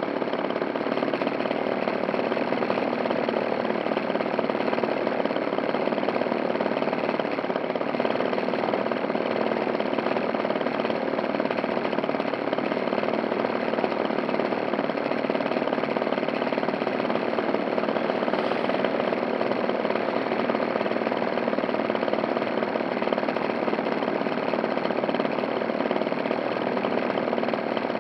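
RC model biplane's motor running steadily at low throttle, heard from on board with its propeller turning, with no revving.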